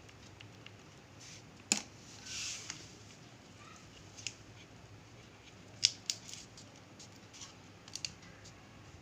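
Scissors snipping paper in a handful of separate cuts, each a sharp short click, with a brief paper rustle about two seconds in.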